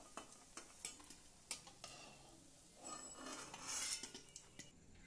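Faint clicks and scrapes of a flat steel spatula against an aluminium kadai as fried cabbage fritters are lifted out of the oil: several separate clinks in the first two seconds, then a longer soft scraping about three seconds in.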